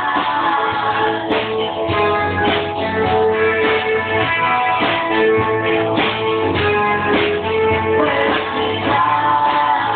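Live band playing a song: guitar and keyboard over drums keeping a steady beat.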